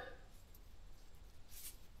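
Near silence, with one brief faint scrape about one and a half seconds in, from handling the gearbox parts.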